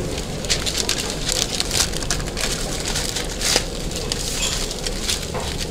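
Sheet of wrapping paper crinkling and rustling in irregular crackles as a dürüm wrap is rolled up in it, over a steady low background noise.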